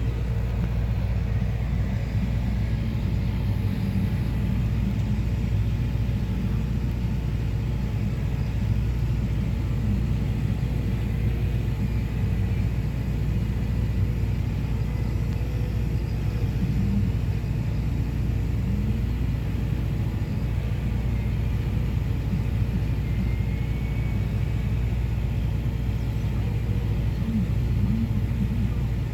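Tractor engine running steadily, heard from inside the cab, as the tractor pulls a grain cart alongside a combine during on-the-go unloading in the corn harvest.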